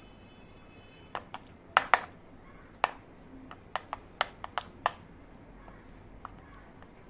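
Sharp plastic clicks and taps, about a dozen in an irregular run over roughly four seconds, with two fainter ones near the end, from small toy kitchen pieces being handled and set down.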